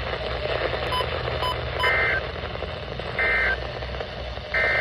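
Three short bursts of NOAA Weather Radio SAME header data tones, each about a third of a second long and spaced a little over a second apart, over steady radio hiss. These digital bursts open a weekly test alert.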